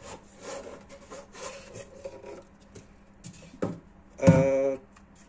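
Packaging being handled, with soft scraping and rubbing, then a click. About four seconds in comes a short, loud pitched sound lasting about half a second.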